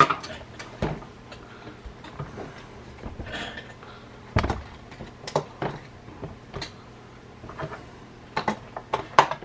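Scattered plastic clicks and knocks of a Nerf Elite 2.0 Double Punch blaster being handled, with one heavier knock about halfway through and a quick run of clicks near the end.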